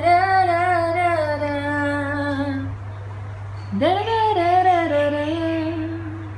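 A voice holding two long, slightly wavering notes: the first about four seconds long, the second rising in about a second later and lasting about two and a half seconds.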